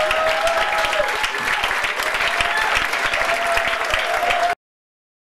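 Comedy club audience applauding at the end of a stand-up set; the sound cuts off abruptly about four and a half seconds in.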